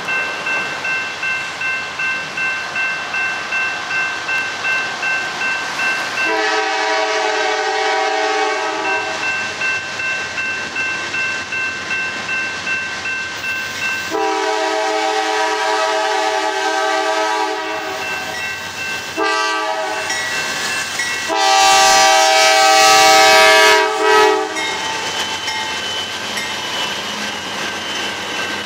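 Norfolk Southern GE Dash 9-40CW diesel locomotive sounding its air horn in the grade-crossing pattern: long, long, short, long. The last long blast is the loudest, and the train's wheels roll past after it. Before the horn there is a steady, pulsing ringing.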